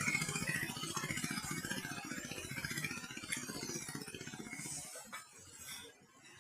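A vehicle's engine running with a rapid, even pulse, fading steadily as it moves away and dying out about five seconds in.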